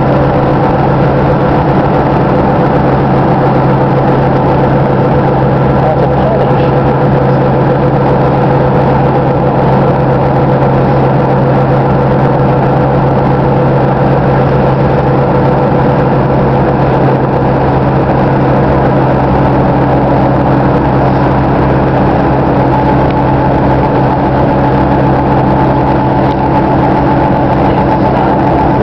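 Transit bus engine and cabin noise heard from inside the bus as it drives at a steady speed: a loud, even drone with a constant low hum.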